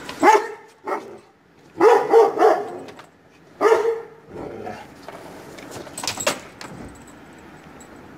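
Young Çapar Kangal barking in answer to neighbouring dogs: about six loud barks in the first four seconds, three of them in a quick run, then a few sharp clicks about six seconds in.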